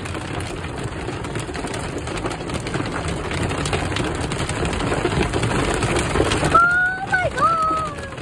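Hailstones drumming on a car's windscreen and body, heard from inside the car as a dense, continuous patter of small hits. In the last second and a half a wiper blade squeaks across the iced glass.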